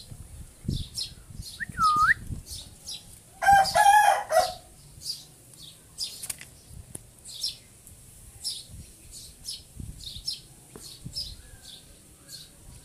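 Caged rose-ringed parakeet giving one loud, harsh screech about three and a half seconds in, with quick short high chirps repeating throughout.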